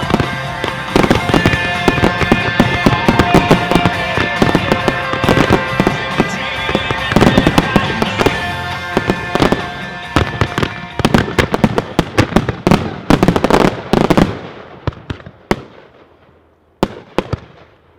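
Rapid, dense barrage of consumer aerial firework shells bursting with music playing over it; after about 14 seconds the bangs thin out to a few last scattered reports and the music stops.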